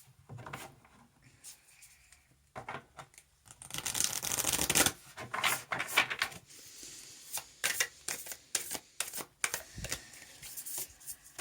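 A Beyond Lemuria oracle card deck being shuffled by hand: a run of short card snaps and slides, with a longer, denser stretch of shuffling about four seconds in.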